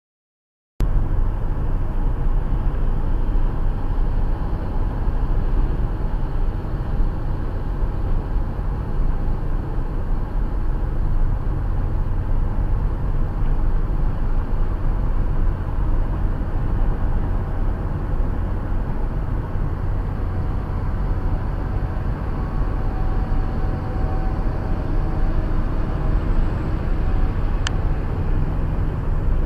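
Steady low road and engine rumble of a car driving on a highway, picked up by a dashcam inside the car; it cuts in abruptly less than a second in. A single faint click sounds near the end.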